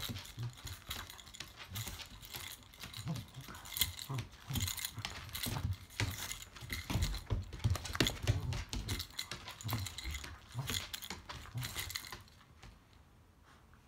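A cocker spaniel's claws clicking and scrabbling on a hard floor, with dull thumps, as it is swung around in a tug-of-war game; the scrabbling stops about twelve seconds in.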